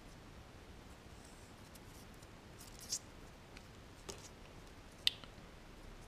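Faint handling of thin electrical wires and a small plastic connector housing: three short plastic clicks about 3, 4 and 5 seconds in, the last the sharpest, over a quiet background.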